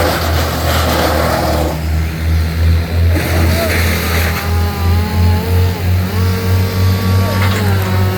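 Wood chipper's engine running steadily, chewing through fed-in branches with a dense grinding noise for the first second and a half or so. From about four seconds in, a whine that steps up and down in pitch rises over the engine.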